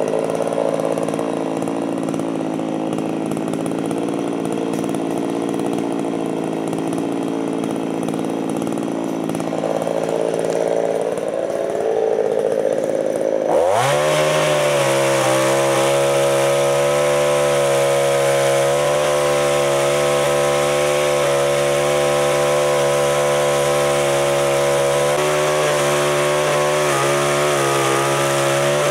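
Gas chainsaw running at part throttle, then revved sharply about halfway through and held at full throttle while cutting a hung-up rotten pine branch.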